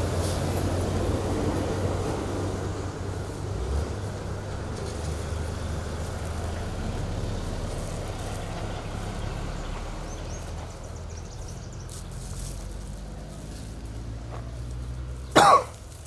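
A vehicle engine idling with a steady low hum. Near the end comes one short, loud vocal sound with a rising pitch, like a cough.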